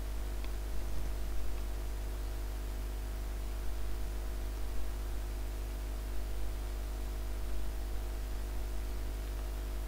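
Steady electrical mains hum with hiss on the recording, a low drone with fainter higher steady tones above it, and a few faint soft sounds over it.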